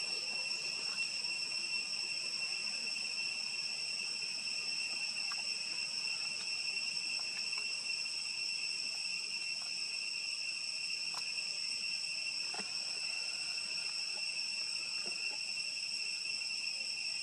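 Steady insect chorus: a continuous, unchanging high-pitched drone, with a few faint clicks.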